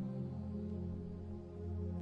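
Ambient background music of slow, held chords; the bass moves down to a lower held note just after the start.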